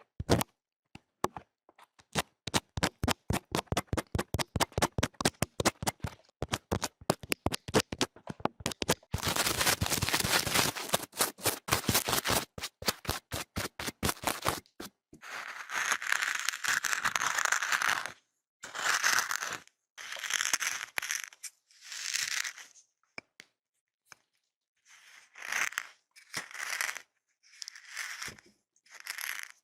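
Close-miked ASMR trigger sounds: a run of sharp taps and clicks that come faster and faster, then a dense crackling stretch, then separate scratchy, crinkly strokes about a second long.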